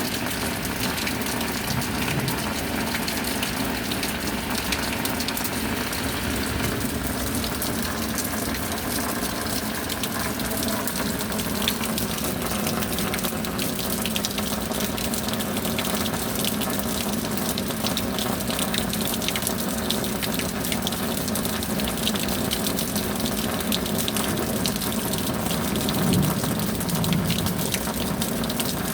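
Steady rain with rushing water and many sharp drop hits close by, a little stronger near the end.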